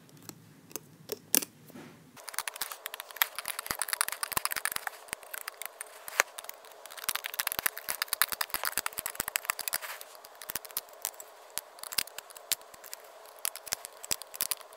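Rubber bands and plastic loom pegs clicking and snapping in quick, irregular bursts as a rubber-band bracelet is picked off the loom.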